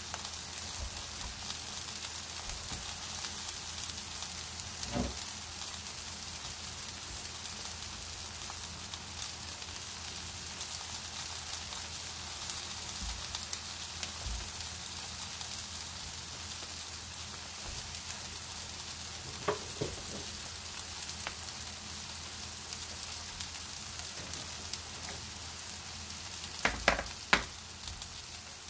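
Egg-battered pollack fillets sizzling steadily in oil in a flat pan. A few brief knocks sound over it, the loudest two close together near the end.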